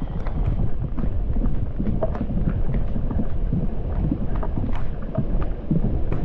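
Heavy rain falling through forest, with irregular close taps of raindrops hitting the camera and rain gear, and low wind noise on the microphone.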